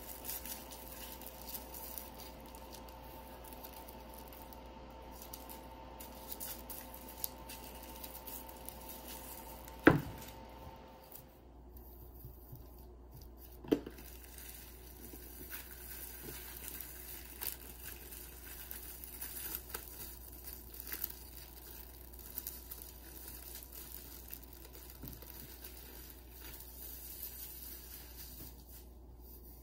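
Plastic cling wrap crinkling and rustling as it is handled and peeled off a plate of dough, with a sharp knock about ten seconds in. A faint steady hum runs under the first third and then stops.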